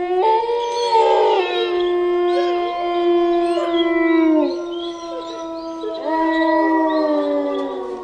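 A pack of wolves howling in chorus: several long held howls at different pitches overlap, with higher wavering yips over them. One set of howls drops away about four and a half seconds in and fresh howls rise about six seconds in.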